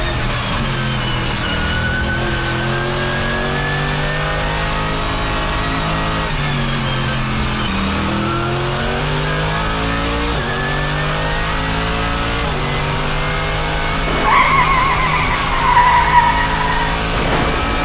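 Race-car engine sounds revving up and down through the gears, several engines overlapping, with tyre squeals near the end. This is a dubbed racing soundtrack rather than the toy cars themselves.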